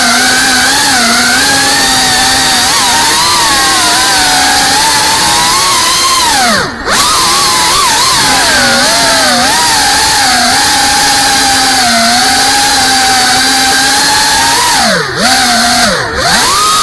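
FPV quadcopter's electric motors and propellers whining, the pitch rising and falling with the throttle. The throttle is chopped briefly about seven seconds in and twice near the end, the whine dropping low and then climbing straight back.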